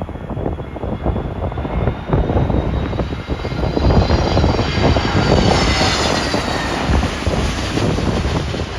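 Jet airliner on final approach passing low overhead, its engines rumbling with a high whine that falls in pitch as it goes by, loudest about halfway through. Strong wind buffets the microphone throughout.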